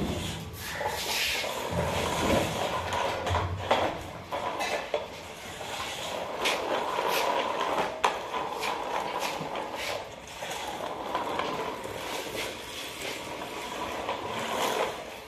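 Plastic toy excavator truck pulled on a string over a concrete floor, its wheels rolling and rattling steadily, with scattered clicks and knocks.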